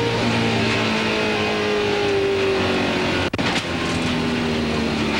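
In-car sound of a NASCAR Cup stock car's V8 engine running at racing speed in the draft, its note sinking slightly over the first few seconds, with heavy wind and road noise. A brief break in the sound comes a little over three seconds in.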